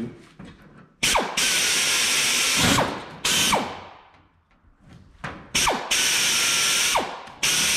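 Pneumatic drill drilling holes through a template into 16-gauge sheet steel. It runs in several hissing bursts of a second or so, each ending with a falling whine as the drill spins down after the trigger is released.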